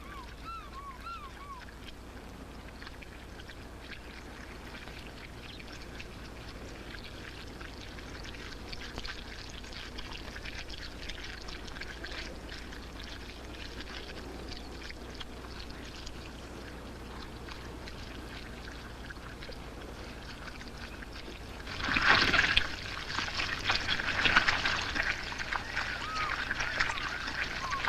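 A crowd of catfish churning and gulping air in a shallow pool of mud: a steady wet crackling and slopping, with a louder burst of splashing about 22 seconds in that stays rougher afterwards. Short bird calls sound near the start and again near the end.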